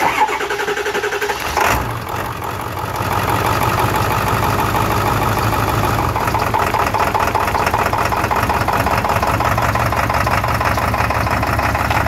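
2002 Ford 7.3 Powerstroke V8 diesel cranking for about a second and a half, catching, then running steadily at idle. With the failed number 8 injector still connected, the engine drops onto about four cylinders soon after starting, which the owner takes for the injector driver module shutting down that whole bank.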